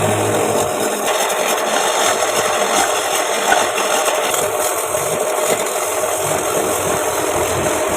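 Homemade wood lathe running while a turning tool scrapes the spinning wood of a wooden plate blank, a steady rasping noise.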